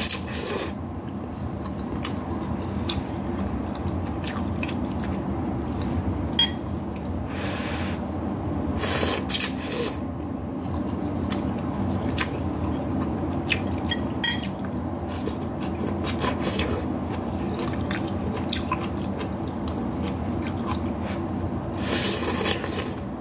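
Noodles in broth being slurped and chewed, with several short, wet slurps over a steady low background noise.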